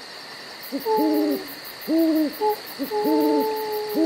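Owl hooting: a run of short hoots about one a second, starting about a second in.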